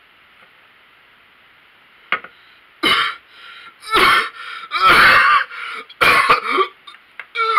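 A young man coughing hard in a string of harsh, irregular hacking coughs and throat clearing, starting about three seconds in after a single light tap.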